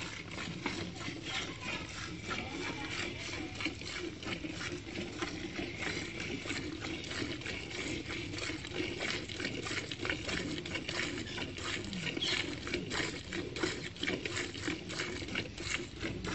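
Cow being hand-milked: repeated squirts of milk hitting a partly filled steel bucket, one after another in a steady rhythm.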